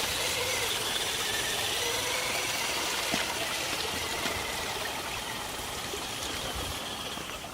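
Axial RC jeep's electric motor and gearbox whining faintly as it drives, over a steady rushing hiss that slowly fades.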